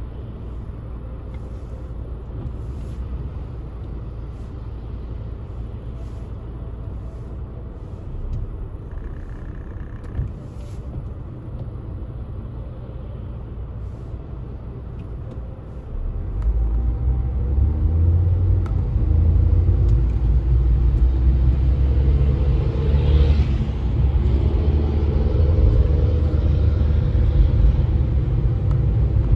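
Car being driven: a steady low rumble of engine and tyres on the road, growing clearly louder about halfway through.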